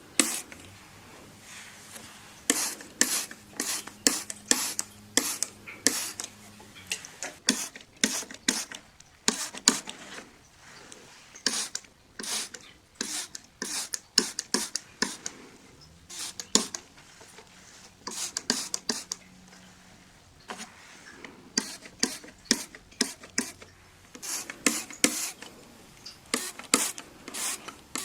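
Window being cleaned: a glass-cleaner trigger spray bottle and wiping on the glass, making many short, sharp sounds in quick runs with brief pauses between them.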